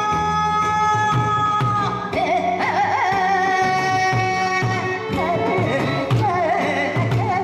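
A woman singing a Korean song through a PA microphone over amplified backing music, with drums keeping a steady beat. She holds long notes and ornaments them with a wavering pitch, most plainly near the end.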